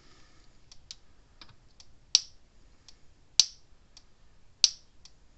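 Gallagher M400 electric fence charger's output pulse arcing across needle-nose pliers bridged between its terminals: a sharp snap about every 1.25 seconds, four times from about two seconds in, with fainter ticks between. It is a hot spark, the sign that the charger now puts out its proper voltage with the right transformer fitted.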